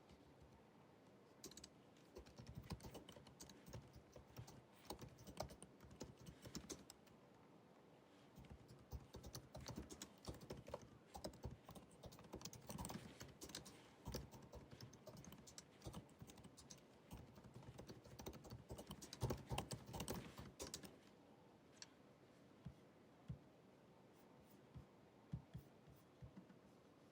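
Typing on the built-in scissor-switch keyboard of a 2019 16-inch MacBook Pro: quick runs of soft key clicks, with a short pause about seven seconds in, then only a few scattered keystrokes from about twenty seconds on.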